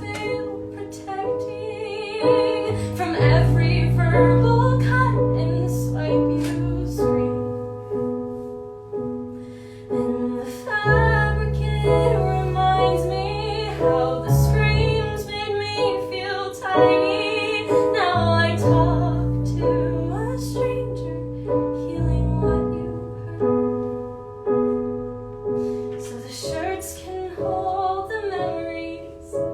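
A woman singing an art song in a classical style, with piano accompaniment. The piano holds low chords that change every few seconds under the voice.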